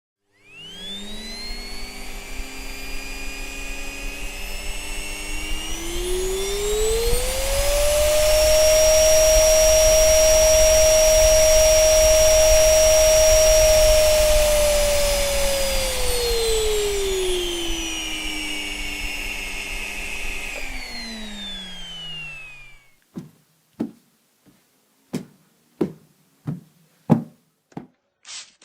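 Vacuum cleaner motor switching on with a rising whine, speeding up to a higher, steady pitch, then winding down and switching off. It is followed by a quick run of short, sharp squeaks or clicks.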